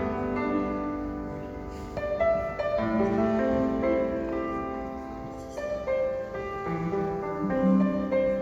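Instrumental music led by piano, playing sustained chords under a melody.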